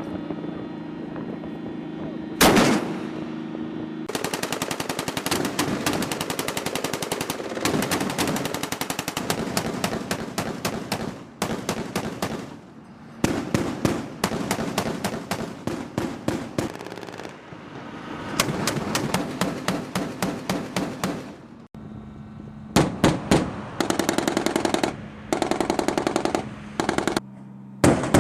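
M242 Bushmaster 25 mm chain gun firing from a LAV-25. A single shot comes a couple of seconds in, then several bursts of rapid fire follow with short pauses between them. A vehicle engine runs steadily under it at the start.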